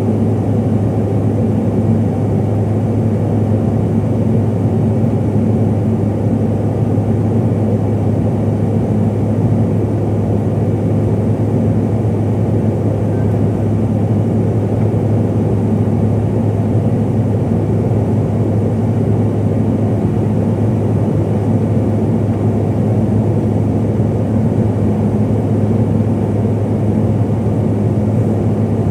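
Steady cabin drone inside a CRJ-700 airliner: the rear-mounted GE CF34 turbofans and airflow making an even rushing noise with a strong low hum, unchanging throughout.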